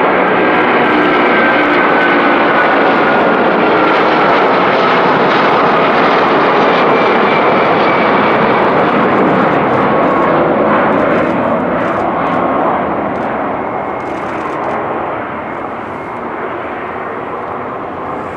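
Jet engines of an Airbus A330-243, two Rolls-Royce Trent 700 turbofans, at takeoff power: a loud, dense roar with whining tones that glide slowly down in pitch as the airliner passes and moves away. The noise fades steadily over the last several seconds.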